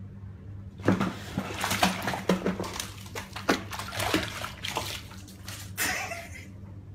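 Bathwater splashing and sloshing as a kitten thrashes in a tub of bubble bath: a quick run of sharp splashes starts about a second in and stops shortly before the end. A steady low hum sits underneath.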